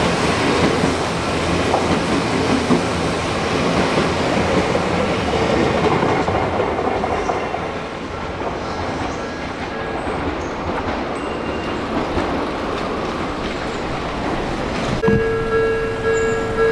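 Odakyu electric commuter train running past close by, wheels clacking over the rail joints, the noise easing off after about seven seconds as it clears. About fifteen seconds in, a steady tone starts suddenly.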